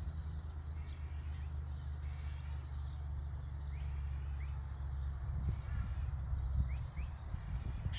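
Road train's diesel engine passing, a steady low drone that turns rougher and more uneven about five seconds in. Faint short bird chirps sound above it.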